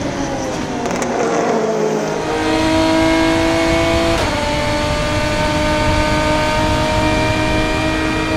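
Aston Martin DBR9's 6.0-litre V12 racing engine at full throttle, heard from inside the cockpit. It falls in pitch over the first two seconds, then holds a steady high note, and about four seconds in the pitch drops suddenly as the car shifts up a gear, then holds steady again.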